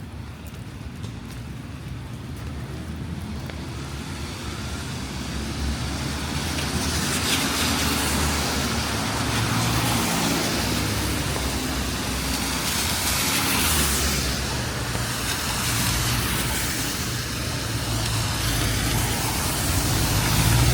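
Road traffic passing on a rain-wet street: tyres hissing on the wet pavement over a low engine rumble, growing louder over the first several seconds and swelling as vehicles go by, with rain falling.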